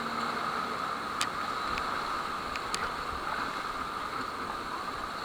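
Steady rushing of river water around a raft, with a few light sharp ticks between about one and three seconds in.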